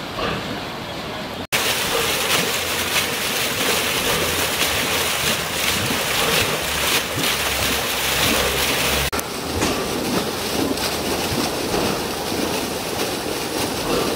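Water pouring out of an outfall in a stone wall, a steady loud rushing splash. About nine seconds in it changes to a softer, steady wash of water.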